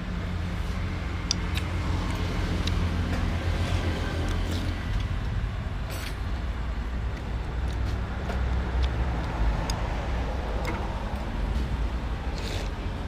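Steady low rumble of road traffic, with scattered light clicks of chopsticks and a spoon against a soup bowl.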